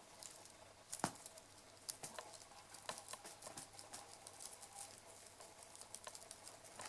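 Faint, irregular clicks and taps, with one sharper knock about a second in, over a faint steady hum.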